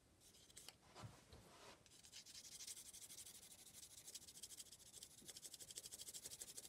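Graphite pencil shading on card: faint, rapid back-and-forth scratching strokes laying in a shadow tone. A few separate strokes come first, then a continuous run starts about two seconds in.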